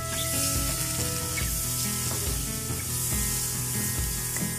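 Butter sizzling as it melts in a hot nonstick frying pan over medium heat, pushed around the pan with a spatula.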